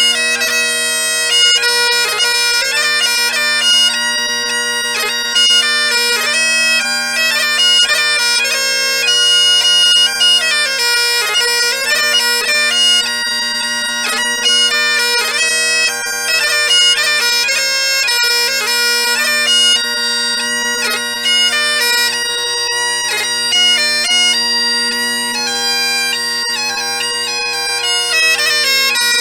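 Bagpipes playing a Scottish tune: the drones sound one steady chord underneath while the chanter plays a quick, ornamented melody.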